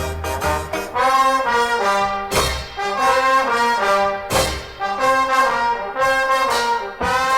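Jazz orchestra music, led by the brass section playing held chords, with sharp accented attacks every second or two.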